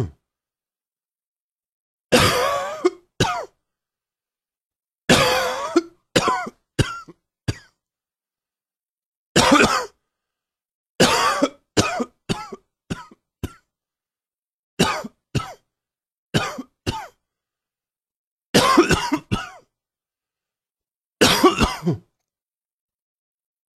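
A person coughing in repeated bouts, each a few coughs in a row, with dead silence between the bouts.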